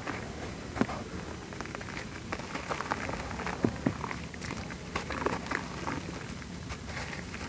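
Hard black sand shapes crumbling apart in foamy water: a continuous crackle and patter with irregular sharp little cracks throughout.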